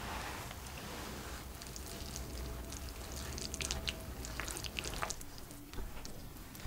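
Silicone spatula stirring thick pancake batter full of grated potato and zucchini in a glass bowl: wet squelching with many short sharp clicks and slaps from about a second and a half in, easing off near the end.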